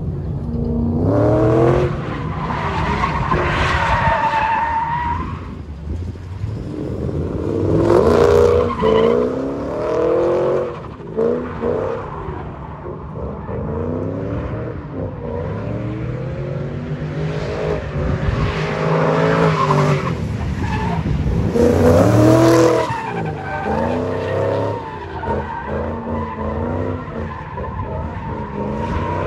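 Stock S197 Ford Mustang GT's 4.6-litre three-valve V8 revving up and down repeatedly as the car drifts, its tyres squealing and skidding. It is loudest about eight seconds in and again about twenty-two seconds in.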